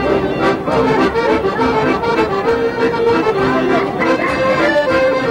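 Accordion music, with held chords under a quicker melody.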